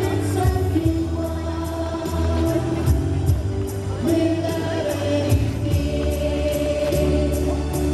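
Music with singing voices, several voices together, over a steady beat.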